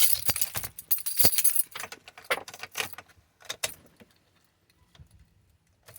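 Keys on a ring jangling and clinking, busiest over the first three seconds, then a few scattered clicks. No starter or engine cranking is heard, which fits the truck's no-crank, no-start fault.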